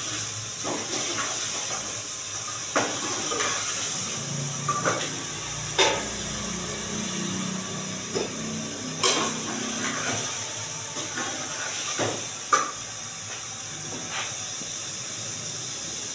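A steel pot of chicken curry sizzling with a steady hiss on a gas burner, while a metal ladle stirs it and knocks and scrapes against the pot now and then, about a dozen times.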